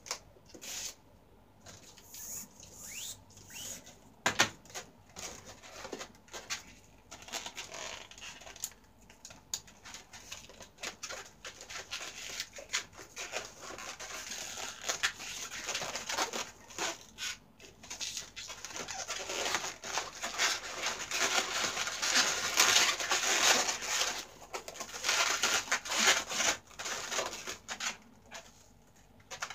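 Latex modelling balloons squeaking and rubbing against each other as they are twisted and woven by hand, with many small clicks and creaks. The rubbing grows denser and louder in the second half.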